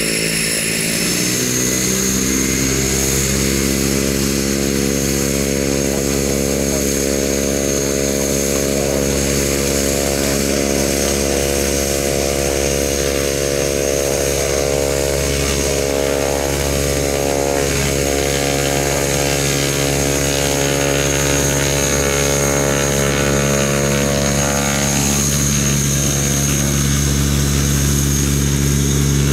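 Propeller aircraft engines running, a deep, even drone with a steady high whine over it. The pitch drops in the first couple of seconds, then holds steady.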